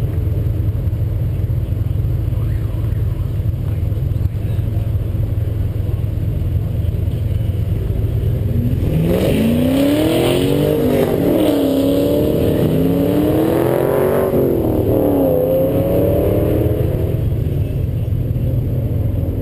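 Turbocharged 2007 Ford Mustang V6 engine idling with a steady low rumble. From about 9 to 15 seconds in, an engine revs, its pitch rising and falling several times.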